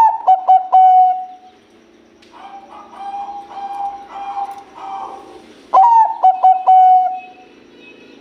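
Zebra dove (Bangkok-strain perkutut) singing its cooing song. Two loud phrases come about six seconds apart, each a few quick clipped notes running into one long held coo. Softer cooing sounds between them.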